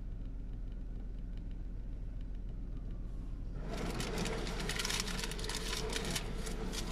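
Automatic car wash heard from inside the car: a steady low rumble, then about three and a half seconds in, water and soap start pelting the car, a loud hissing patter that lasts to the end.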